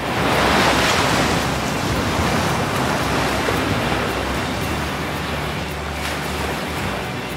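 Ocean surf: an even rush of waves breaking and washing in, swelling loudest about half a second in and then holding steady.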